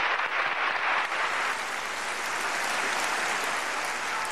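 Concert audience applauding, a dense and steady clapping.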